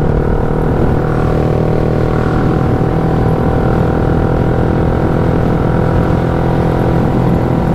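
Yamaha Y15ZR's freshly rebuilt single-cylinder four-stroke engine running under way, holding a steady note at a constant cruising speed.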